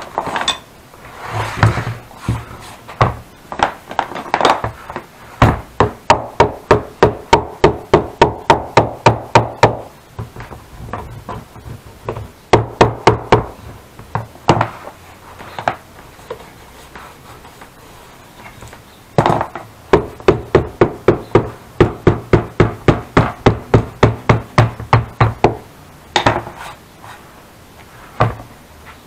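Small hammer striking a leather-covered saddle rim, in runs of quick, even blows about three a second with short pauses and a few single strikes between runs.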